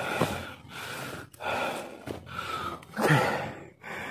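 A man panting hard from the effort of climbing a steep trail: about five heavy breaths in quick succession, each less than a second long.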